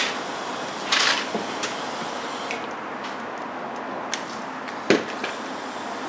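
Tool work under a car while its skid plate is being removed: two short hisses about a second apart, then scattered sharp metallic clicks and knocks, the loudest near the end, over a steady hiss.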